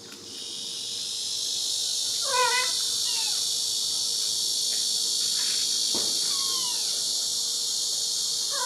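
A steady, loud, high-pitched insect chorus begins just after the start and runs on. A kitten meows briefly about two and a half seconds in and again at the very end.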